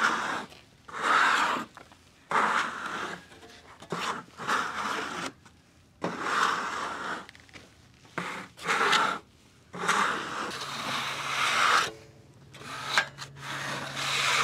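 Repeated brushing strokes across the face of a freshly sawn monkey puzzle slab, clearing away sawdust: uneven scratchy sweeps, each about a second long, with short pauses between them.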